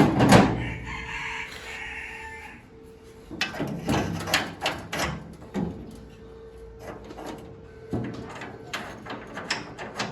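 A rooster crows once for about two seconds, just after a sharp knock. It is followed by an irregular run of knocks and taps from workshop work.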